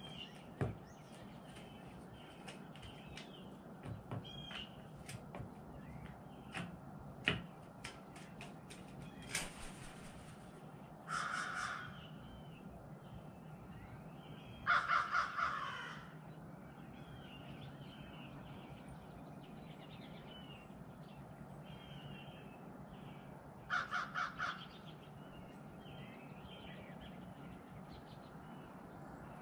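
Crow cawing in short bursts of several rapid caws, three times, the middle burst the loudest. Before that, sharp taps and clicks as the crow pecks at the plastic cups on the table, then a brief rush of noise. Faint chirping of small birds in the background.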